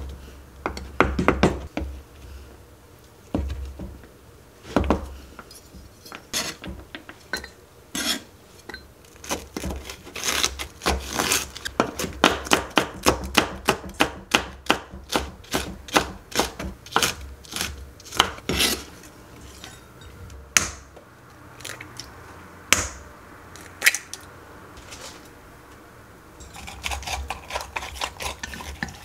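Chef's knife striking a plastic cutting board: a few slow cuts through butter, then fast chopping of green chili peppers, about three to four knocks a second, through the middle. Near the end, chopsticks stir and clink in a glass measuring cup.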